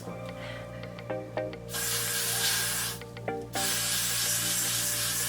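Got2b Glued Blasting Freeze aerosol hair spray hissing in two long bursts of well over a second each, sprayed onto a wig cap, over background music.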